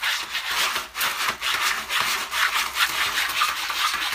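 A cat digging in a plastic litter box, its paws raking through rod-shaped pellet litter in quick, repeated scraping strokes.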